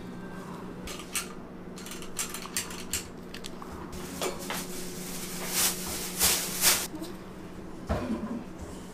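Light kitchen handling sounds: scattered short clatters and rustles, the loudest a little past halfway, over a steady low hum from equipment in the room.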